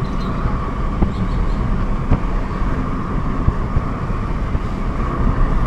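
Steady running noise of a moving vehicle: engine and road rumble with a constant hum, and light knocks about one and two seconds in.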